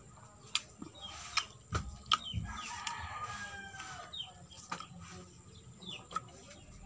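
A rooster crowing in the background, one drawn-out call about two to three and a half seconds in, among scattered sharp clicks from eating.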